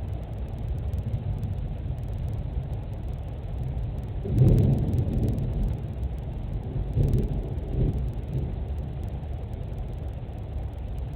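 Thunder rumbling, heard indoors through a home security camera's microphone: a steady low rumble, with one louder roll about four seconds in and two smaller swells a few seconds later.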